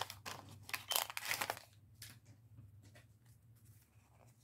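Paper wrapper of a 1990 Fleer baseball card pack being torn open and crinkled: a run of crackly tearing bursts over the first second and a half or so, then only faint rustles.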